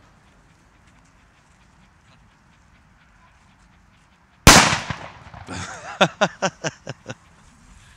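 A firecracker going off with one loud, sharp bang about four and a half seconds in. A quick run of about seven short, loud sounds follows over the next second and a half.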